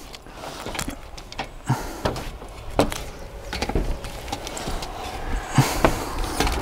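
Irregular knocks and scuffs of boots and hands on slate roof tiles and aluminium solar mounting rails as a worker climbs across the roof, over a low rumble.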